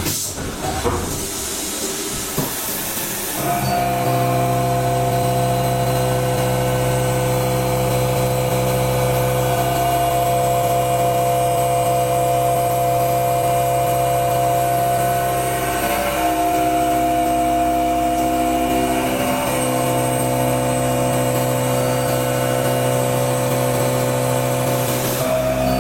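A hiss for the first few seconds, then a CNC milling machine cutting with a corn-type roughing end mill: a steady whine made of several tones. The tones shift slightly a few times along the way.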